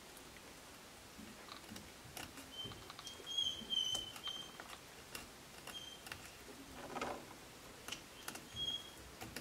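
A dog whining in short, high, thin whimpers, several times, the longest a few seconds in. Under it come light clicks and scrapes of a fillet knife working along a pike's backbone on a plastic cutting board.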